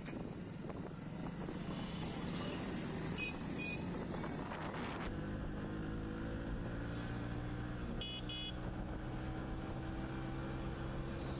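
Motorcycle engine running steadily at riding speed, with wind and road noise. About five seconds in the sound changes suddenly to a cleaner, steady engine note heard from the rider's own bike, with a few short high beeps from traffic.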